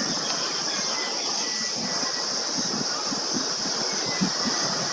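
Steady high-pitched insect chorus over a rushing outdoor background noise.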